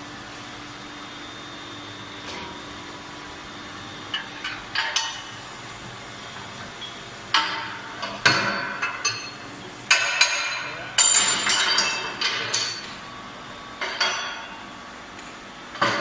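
Metal clanking at a workshop machine: a series of sharp metallic knocks and clinks with a short ringing after each, starting about four seconds in, thickest in the middle and tailing off near the end, over a steady low hum.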